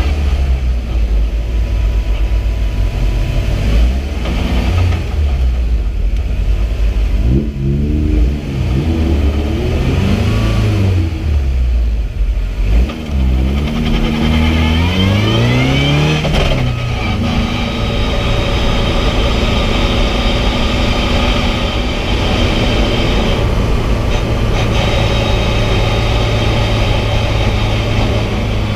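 VW Fun Cup race car's engine heard from inside the cockpit: running low and steady at first, then revving up through the gears with a rising pitch and a drop at each of several upshifts, settling into a steady high note at speed.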